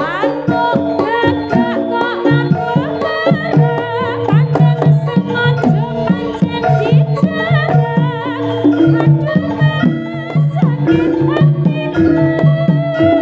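Jaranan gamelan music played loud: hand-drum strokes drive a steady rhythm under sustained gong-chime tones, with a sliding, wavering melody line running over the top.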